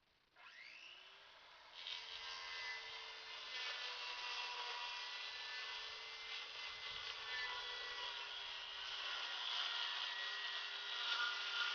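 Power saw spinning up about half a second in, then cutting through 1/4-inch plywood soffit stock from about two seconds in, running steadily through the cut.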